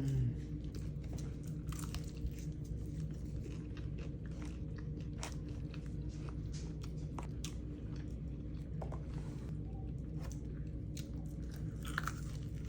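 Close-miked chewing and crunching of crispy dry-rub (Louisiana rub) chicken wings: irregular crisp bites and smacks over a steady low hum.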